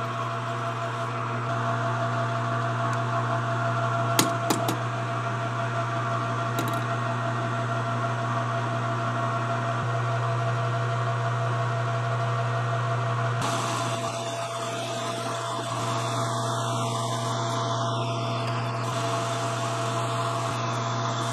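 Metal lathe running with a steady motor hum while turning a small metal ferrule for a cable adjuster, with two sharp clicks about four seconds in.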